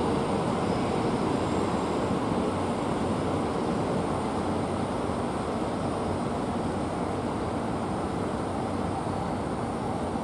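Shinkansen train noise at the platform: a steady rushing hum that slowly fades.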